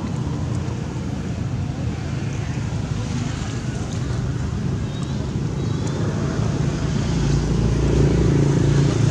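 An engine running steadily, getting louder over the last two seconds or so, over a haze of outdoor noise.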